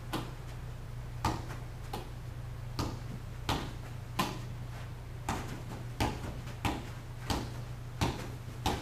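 Ball bouncing again and again off a man's head and shoulders: about a dozen dull thumps, roughly one every two-thirds of a second.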